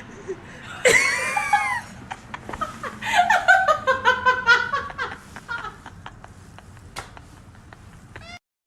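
A person laughing in a run of quick bursts, after a sudden high-pitched cry about a second in.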